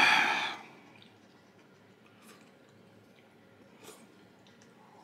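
Eating sounds: a short, loud mouth noise lasting under a second at the start, then faint clicks of tableware and quiet chewing.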